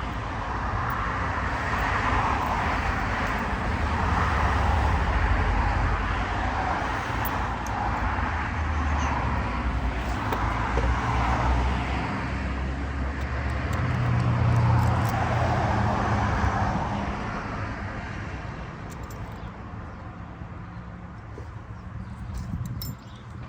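Road traffic passing: a rumble and tyre hiss that swell and fade several times as vehicles go by, the last one fading away over the final few seconds.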